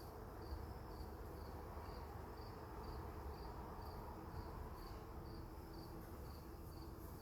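Honeybee colony humming loudly from an opened hive, which the beekeepers suppose is bees fanning to dry uncapped nectar. Over it, a high insect chirp repeats evenly about twice a second.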